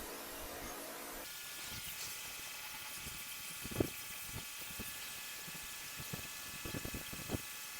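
KVAOK pressure washer's pump running quietly while spraying concrete, a steady hiss of spray with a steady high whine that comes in about a second in. Scattered small ticks and spatters sound over it.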